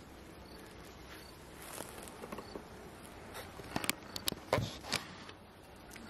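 Honey bees buzzing steadily at an open hive while a wooden frame is pried up and lifted out. The frame clicks and knocks against the hive box, the sharpest knocks coming between about four and five seconds in.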